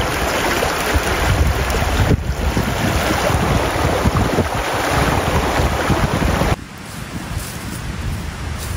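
Shallow mountain stream rushing and splashing over rocks, a loud steady wash of water. It cuts off abruptly about two-thirds of the way through, giving way to a quieter steady hiss.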